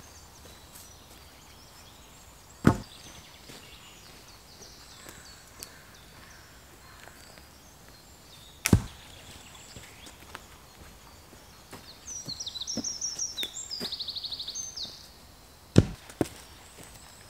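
Dead-wood poles dropped one at a time onto the forest floor, three heavy wooden thuds about six seconds apart, the last followed by a smaller knock. Between the second and third thuds a small bird sings a fast, high trill for a few seconds.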